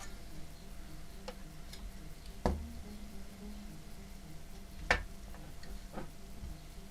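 A few sharp clicks and knocks, the two loudest about two and a half and five seconds in, over faint background music.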